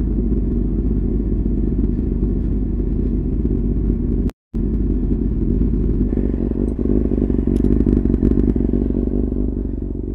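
Kawasaki ZX-6R J1's inline-four engine idling steadily, with a brief break in the sound about four seconds in. Light metallic clicking and clatter come near the end, around eight seconds.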